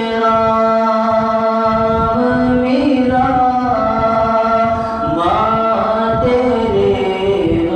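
A male voice singing a nasheed without instruments, holding long notes that shift pitch about three and five seconds in.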